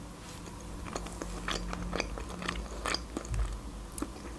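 A person chewing a mouthful of pasta shells in cream sauce, heard as a string of short, irregular mouth clicks.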